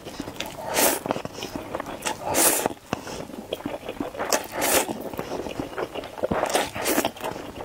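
Instant noodles being slurped from a cup in a series of short, sharp slurps, with mouth and chewing noises between them.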